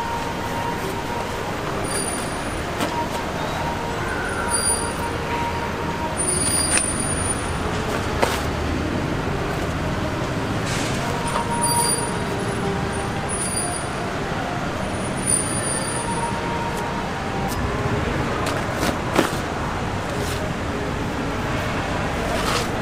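Steady noise of vehicle traffic, with engines running, a few sharp knocks and brief high squeaks scattered through.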